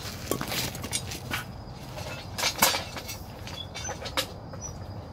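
Rustling of the phone being handled against clothing, with scattered clicks and knocks and one louder knock about two and a half seconds in.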